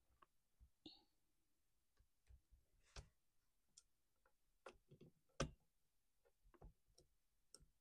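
Faint, scattered clicks and light taps of a wire choke rod being worked into a worn plastic choke lever on a Stihl MS 271 chainsaw, the loudest tap about five and a half seconds in.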